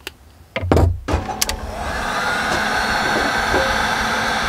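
Handheld Wagner heat gun switched on about a second in, after a couple of low knocks, then running with a steady blowing rush and a faint whine while it shrinks heat-shrink tubing over the stereo's wire connectors.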